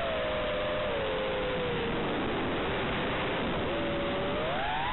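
FPV quadcopter's motors and propellers whining, heard through the onboard camera's microphone over the analog video link under a steady radio hiss. The pitch eases down through the first half, is lowest about three seconds in, then climbs sharply near the end as throttle is added.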